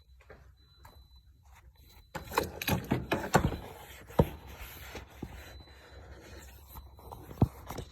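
Scraping and rubbing with several sharp knocks, starting about two seconds in, over a faint steady low hum.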